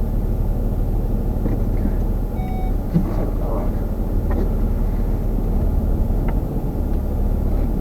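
Steady low rumble of a car driving, engine and road noise heard from inside the cabin, with a few faint short tones about two and a half seconds in.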